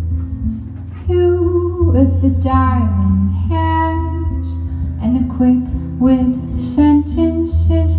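Live song performance: guitar with a woman singing, her voice coming in about a second in.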